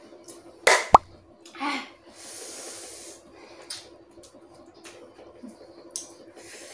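A sharp pop just under a second in, then a short vocal sound, followed by soft paper rustling and small clicks from a paper notepad being handled and written on.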